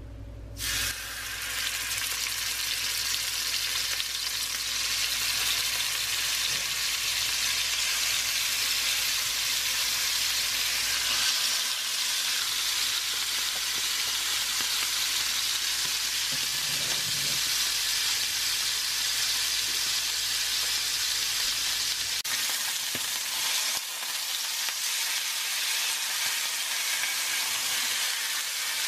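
Beef steaks sizzling in hot oil in a frying pan. The sizzle starts abruptly about a second in as the meat goes into the pan, then stays a steady hiss.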